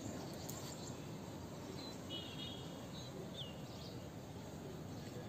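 Quiet outdoor garden ambience, a steady low hiss of background noise, with a few faint high bird chirps about two to three and a half seconds in.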